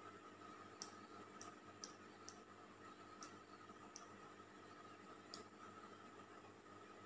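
Faint, light clicks, about seven at uneven intervals, as the metal tips of an analog multimeter's test probes are tapped together to check that the meter works.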